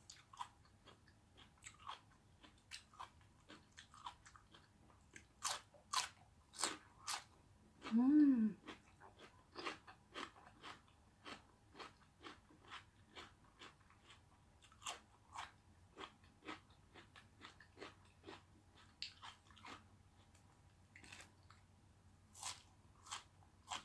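Close-miked chewing and crunching of food, a steady run of sharp wet mouth clicks and crunches. About eight seconds in comes a short hummed "mm" that falls in pitch.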